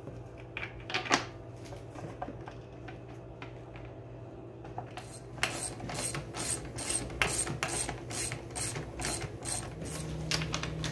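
Ratchet and socket clicking in an even run of about three clicks a second as it drives in the bolts that hold the motor to a Hayward Super Pump's housing. The first half holds only a few scattered clicks and one louder knock as the parts are handled.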